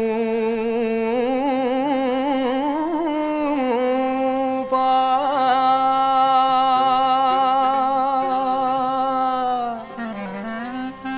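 Recording of a Greek demotic folk song. A lead line of long, ornamented notes plays quick wavering trills for the first few seconds, then holds one note for about five seconds. Near the end it drops in pitch and gets quieter.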